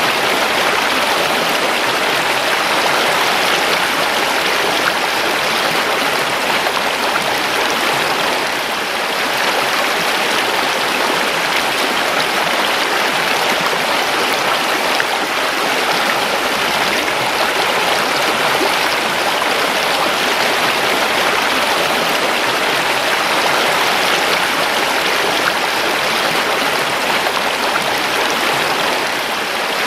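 Creek water rushing and babbling over stones: a steady, loud, even wash of running water.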